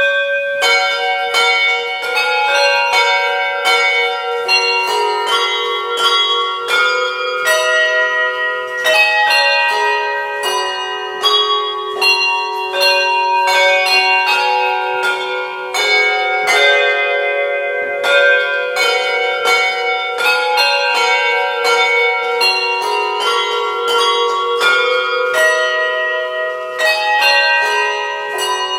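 Handbells played by a team of ringers, ringing a carol tune: one bell after another is struck, and the notes ring on and overlap. The playing starts sharply at the outset and goes on without a break.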